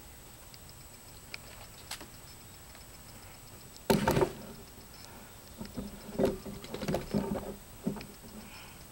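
An airsoft pistol is set down on a wooden deck railing, giving one sharp knock about four seconds in. It is followed by a few seconds of lighter clacks and rubbing as the gun is shifted on the wood.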